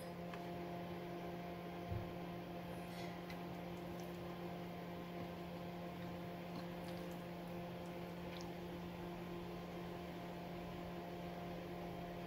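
A steady electrical hum with a few fainter overtones, and one soft knock about two seconds in.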